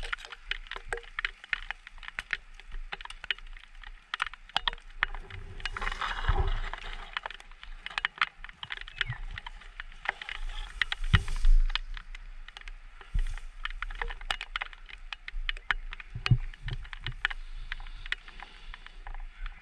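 Tall dry grass rustling and crackling against the camera as it pushes low through the grass, with many irregular sharp clicks and a few dull bumps from handling.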